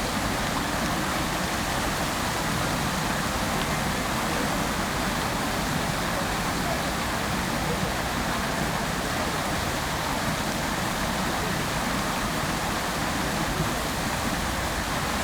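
Water fountain splashing steadily: an even, unbroken rush of falling water.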